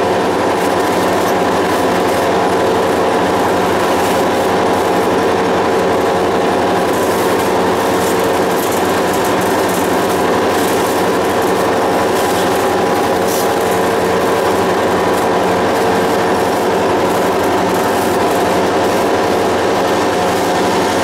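A moving train heard from aboard: a steady, unbroken rumble of wheels on the rails with a constant hum of several held tones.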